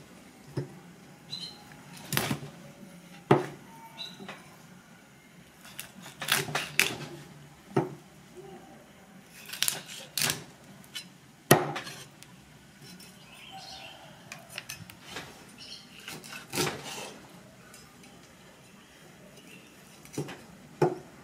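Steel cleaver chopping bone-in roasted rat on a thick wooden chopping block: about a dozen sharp, irregular chops, with a longer pause in the second half.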